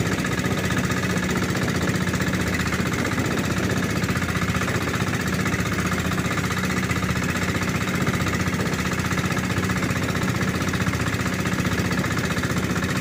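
Engine of a motorized outrigger boat (banca) running steadily under way, a fast, even pulsing chug.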